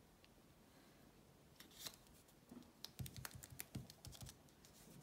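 Faint tapping and light rustling of fingers pressing a freshly glued paper strip flat against a work mat, with a cluster of quick taps and soft thumps in the second half.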